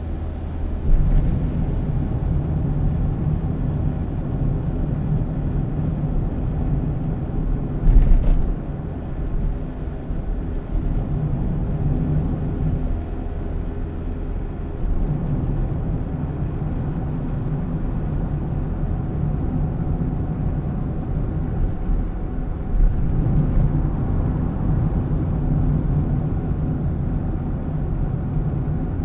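Car engine and road noise heard from inside the cabin through a dashcam's microphone while driving, the engine hum swelling and easing. A brief knock about eight seconds in.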